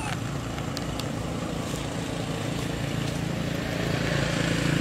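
A motor engine running steadily, a low even hum that grows a little louder near the end.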